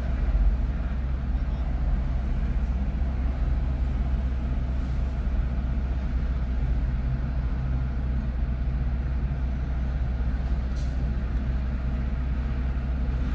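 Steady low rumble of vehicle engines and freeway traffic.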